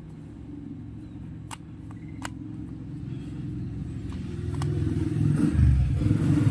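A motor vehicle engine running, a steady low hum that grows steadily louder, loudest near the end. A few light clicks of a screwdriver turning the battery-cover screw on a toy train.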